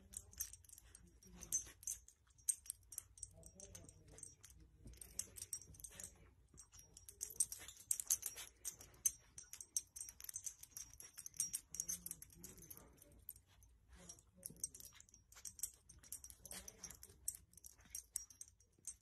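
Faint close-up sniffing, snuffling and licking of a puppy nosing at a swaddled baby, with soft blanket rustle: many quick, irregular ticks and short hissy breaths.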